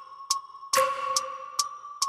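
Background electronic music: a steady ticking beat of about two clicks a second over held tones, with a stronger accented hit about halfway through.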